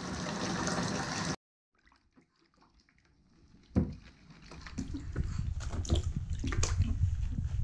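Bath tap running, filling the tub, then stopping abruptly about a second and a half in. After a couple of seconds of near silence, water splashing and sloshing with irregular knocks.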